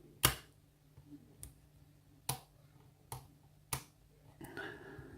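Sharp, irregular clicks of a lock pick and tension wrench working the security-pinned cylinder of a Yale challenge lock, pins clicking as they are set against tension. About five clicks, the first the loudest.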